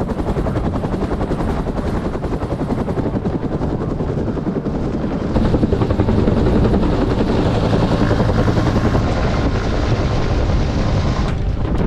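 Helicopter flying, its rotor beating in a fast steady chop, growing louder about five seconds in.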